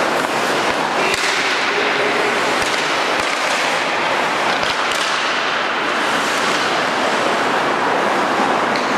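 Ice hockey skates carving and scraping across the rink ice in repeated sweeping swishes, with a few sharp clacks over a steady rink din.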